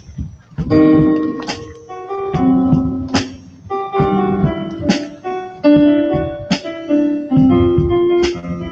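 Marching band playing a rock arrangement: held chords with an electric-keyboard sound over drum hits about every second and a half. The full band comes in about a second in, after a few drum strikes.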